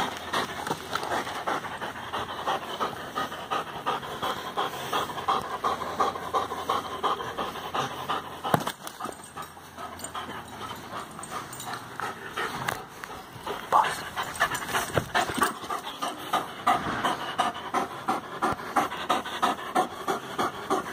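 A greyhound panting hard in quick, even breaths, about three a second. The panting eases off for a few seconds in the middle and comes back stronger. A single sharp click sounds a little before the middle.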